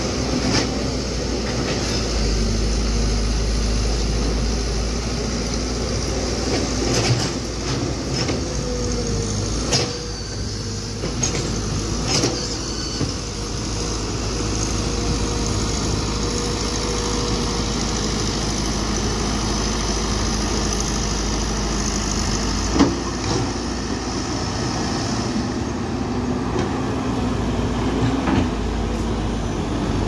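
Heavy dump truck's diesel engine running steadily, with scattered sharp knocks and clanks, the loudest a little past the middle.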